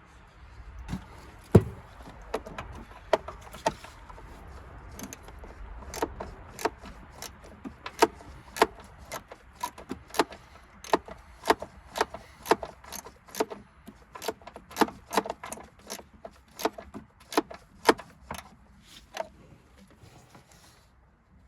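Irregular sharp clinks and knocks of hand tools and metal parts being handled, about one or two a second, with a heavier knock about a second and a half in.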